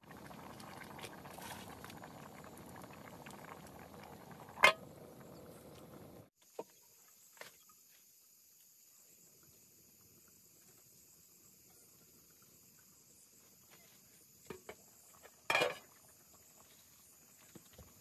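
A pot of food bubbling at the boil over an open wood fire, with one sharp crack about four and a half seconds in. After about six seconds this gives way to faint, steady high-pitched insect chirring with a few scattered knocks, the loudest about fifteen seconds in.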